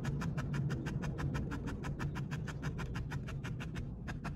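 A felting needle stabbing repeatedly into a wool-felt ball on a foam pad: a fast, even run of sharp clicks, about eight or nine a second, with a brief pause near the end. This is the needle being jabbed hard in one spot to work a deep socket for a glass eye.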